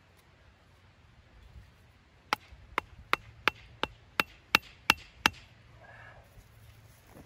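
A wooden stake being driven into the ground beside a young fir with a hatchet: nine sharp, evenly spaced knocks of metal on wood, about three a second, starting a couple of seconds in.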